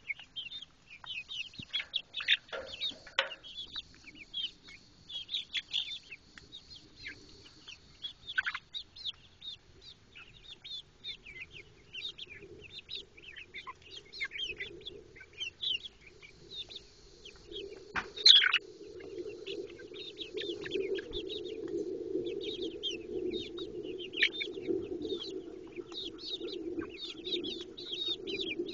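A flock of young hens chirping and peeping as they feed, a constant stream of short, high calls. A single loud, sharp call comes about two thirds of the way through, and a steady low drone runs underneath from then on.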